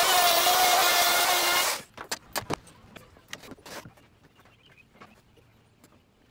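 Handheld router cutting plywood: a loud, steady whine with cutting noise that shuts off under two seconds in. Then comes a run of short knocks and clatters as the board and straightedge are handled.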